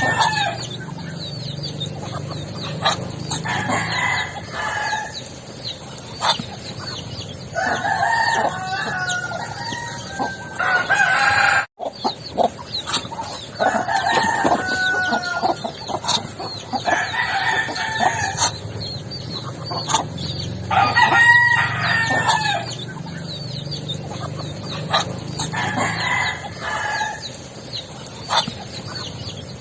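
Backyard roosters crowing over and over, one long call every four to six seconds, with fainter short bird calls in between.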